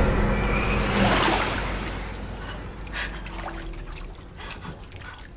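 Bathwater splashing and sloshing in a tub, with a gasp, as a woman comes up out of the water. There is a second surge of splashing about a second in, then it dies down to trickling and small splashes.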